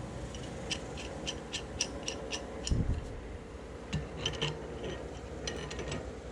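Light metallic clicks, about four a second for a couple of seconds, then a dull knock and a few more scattered clicks, as a cassette lockring tool, wrench and chain whip are fitted to a mountain bike's rear cassette.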